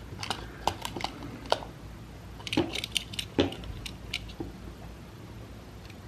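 Scattered light clicks and taps of a small plastic switch and its wire leads being picked up and handled, mostly in the first four seconds or so.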